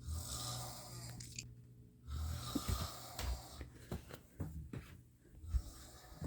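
Snoring: two long snoring breaths about two seconds apart, followed by a few short sharp clicks.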